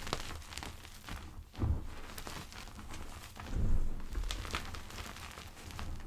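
Gym chalk pebbles being crushed, a run of soft, irregular crackles and crunches. Two dull thuds, about a second and a half and three and a half seconds in, are the loudest sounds.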